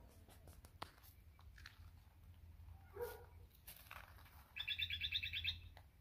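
A small bird gives a quick, even run of about ten high chirps in a second, a little past halfway through, over a faint low hum, with a few soft clicks before it.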